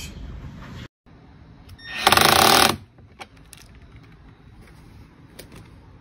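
Power driver running a bolt into a car door's inner panel: one short, loud burst of rapid hammering about two seconds in, followed by a few faint clicks of handling.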